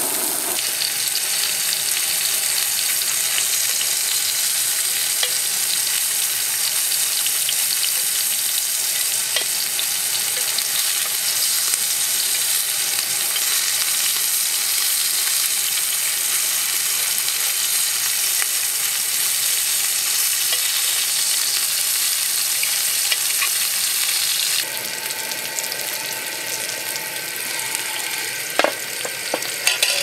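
Pieces of meat sizzling in hot oil in a shallow pan, a steady hiss. About three-quarters of the way through it gives way to a quieter background with a few sharp knocks.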